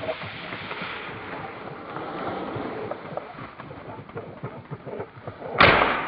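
Steady swishing of footsteps and legs pushing through tall grass, then a single loud shotgun shot about five and a half seconds in, fired at a flushed game bird.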